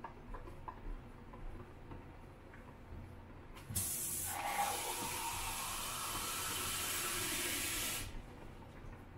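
Kitchen tap water pouring into a black-and-white film developing tank, a steady splashing hiss that starts a few seconds in and stops after about four seconds. Faint clicks of the tank being handled come before it.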